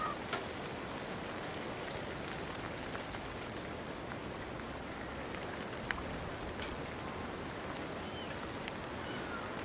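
Steady rain falling, a continuous even hiss with a few sharper drop ticks.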